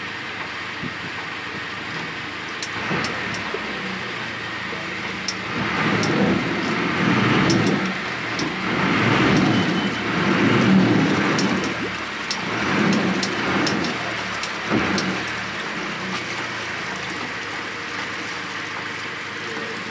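Small passenger boat's engine running steadily, then throttling up in several surges over about ten seconds as the boat manoeuvres alongside a dock, with scattered light clicks.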